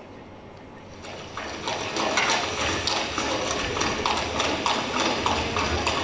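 Clip-clop of horse hooves played as a stage sound effect for the king's approaching carriage. It starts about a second in as a run of evenly spaced hoof strokes and gets louder over the next second.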